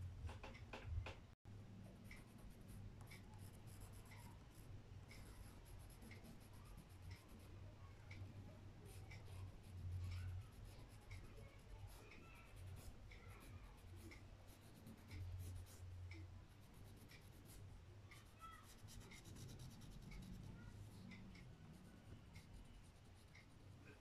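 Faint scratching and rubbing of a pastel stick drawing on paper, with scattered light ticks, over a low steady hum.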